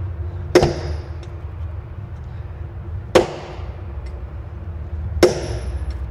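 Hammer striking an old bolt held on top of a bottom-expansion anchor bolt, driving it down into its hole in the concrete floor of a gun safe: three sharp metal-on-metal strikes about two and a half seconds apart, each ringing briefly.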